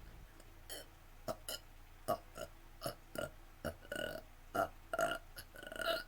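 A girl burping in a quick string of short burps, about a dozen in five seconds, brought on by gulping soda.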